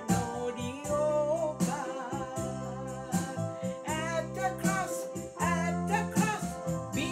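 A woman singing a Christian hymn, with a slow wavering vibrato, to her own electronic keyboard accompaniment of sustained chords and a steady bass line.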